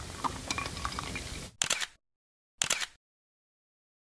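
Aftermath of a Little Dan firecracker blast: a fading outdoor tail with faint crackles from the burning remains, cut off after about a second and a half. Then come two short clipped bursts of noise and dead silence.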